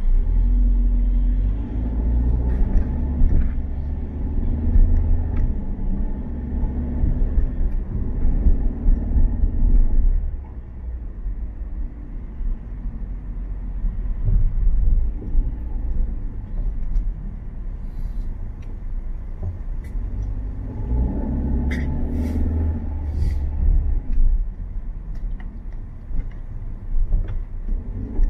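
Low rumble of a car's engine and road noise heard from inside the cabin while driving, louder over the first ten seconds or so and again about three-quarters of the way through. A few sharp clicks come at about twenty-two seconds.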